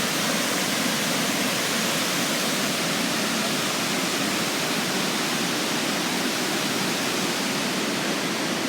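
Kegon Falls' tall waterfall plunging into its basin: a steady, unbroken rush of falling water.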